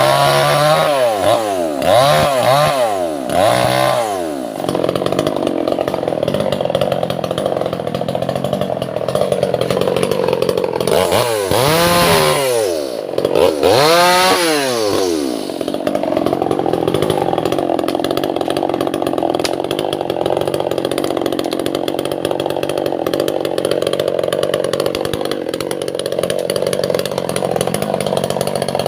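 Two-stroke chainsaw cutting Albasia (sengon) wood. Its engine revs up and down several times in quick succession in the first few seconds and again around the middle. Otherwise it runs at a steady high speed under load.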